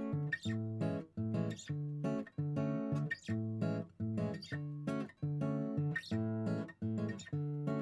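Background music: acoustic guitar strumming chords in a steady rhythm, each chord briefly cut off before the next.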